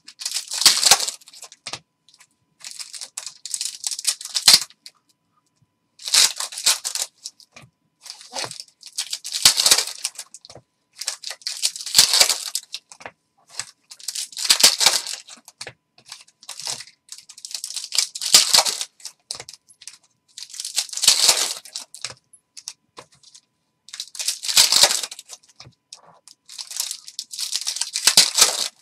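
Foil hockey card packs being torn open and crinkled by hand, one after another: a short papery tearing and crinkling burst every two to three seconds, with quiet gaps between.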